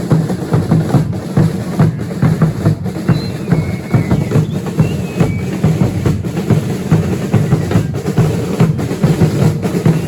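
Drums of a religious dance troupe beaten together in a dense, steady rhythm, with deep bass-drum strokes and snare-type drums, and a few faint short high whistling tones midway.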